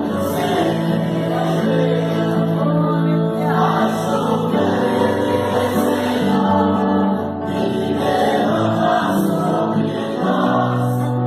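Church choir singing a Christian song in long held notes that shift pitch every second or two.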